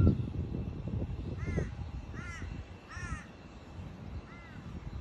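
A bird gives four drawn, harsh calls, each rising and falling in pitch, the first three under a second apart and the last after a longer gap. A low rumble sits under them, loudest at the very start.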